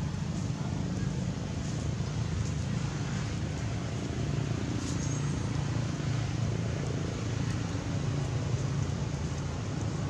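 Steady low outdoor rumble with no distinct calls or knocks.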